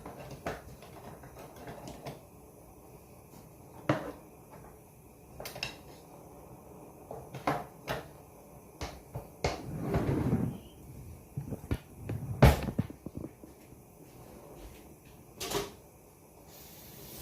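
Kitchen clatter: scattered knocks, clicks and bumps from utensils, pans and cupboard doors being handled, with a longer scraping rustle about ten seconds in and the loudest single knock a couple of seconds later.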